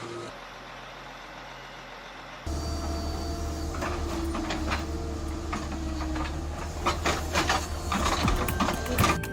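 Heavy machinery running with a steady low hum and a stream of metal clanks and knocks. The sound jumps louder about two and a half seconds in, and the knocks come thicker over the last couple of seconds.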